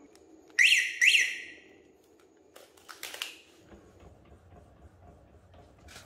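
Motorcycle remote alarm and keyless-start kit sounding two short electronic chirps, each dipping and rising in pitch, about half a second apart, as when it is armed or disarmed from the key fob. A few faint clicks follow.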